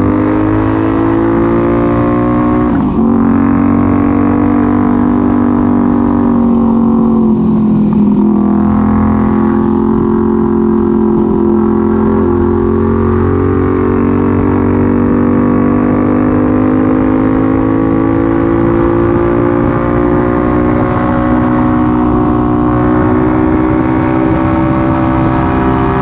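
Benelli 752S parallel-twin engine under way, ridden with its silencer removed. The revs dip briefly twice, about three and eight seconds in, and climb again, then hold a steady drone that rises and falls gently.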